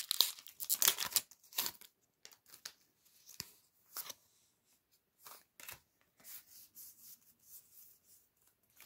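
Foil Pokémon TCG booster pack crinkling as it is torn open, for about the first two seconds, then the trading cards rustling and sliding with scattered soft clicks as they are pulled out and handled.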